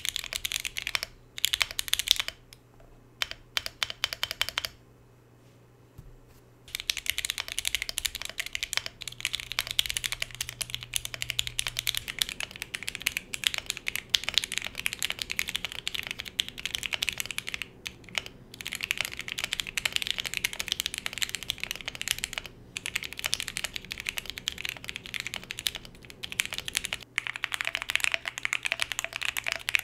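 Typing on a KBDFans Tofu65 2.0 SE custom mechanical keyboard with stock Gateron Oil King switches on a polycarbonate plate and PBT Cherry-profile keycaps. It starts in short clusters of keystrokes, then runs as steady fast typing from about seven seconds in. The sound changes twice as the foam setup changes: no foam first, then case foam only, then plate and switch foam.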